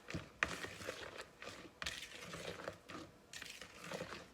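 Irregular light clicks and knocks of a kitchen utensil against a bowl, with soft scraping between them, as a thick creamy mixture with crushed cookies is stirred and handled.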